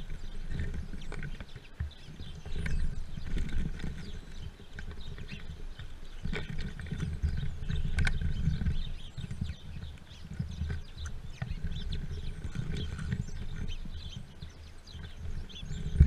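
Grackles and other birds feeding at a plastic seed feeder right at the microphone: frequent short chirps and calls, sharp taps and knocks of beaks and feet on the feeder, and an uneven low rumble from the birds jostling and flapping against it.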